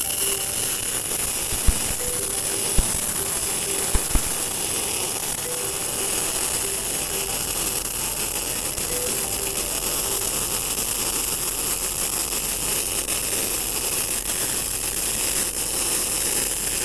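MIG welding arc from a TOPGUN MIG-315VS welder on single-phase power, a steady hiss as a bead is laid on steel, with a few sharp pops in the first four seconds. The voltage is set slightly high: the welder says dropping half a volt to a volt would make the welding sound much sweeter.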